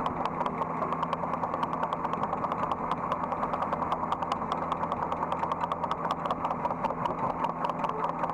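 Hydraulic excavator's diesel engine running steadily, heard from the operator's seat, with a fast even pulse.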